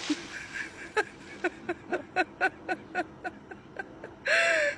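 Puppy giving a rapid series of short squeaky yelps, each falling in pitch, about four a second, with one louder, longer cry near the end.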